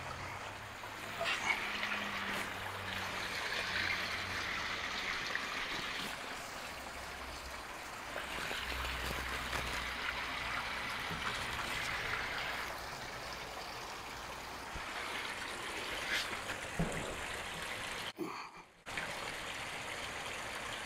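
Steady trickle of running water from a koi pond's stream and waterfall, with a few faint knocks as a wooden post is handled.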